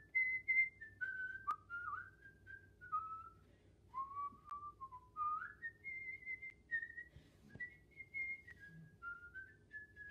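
A man whistling a tune by mouth, one clear note at a time, the melody stepping and sliding up and down.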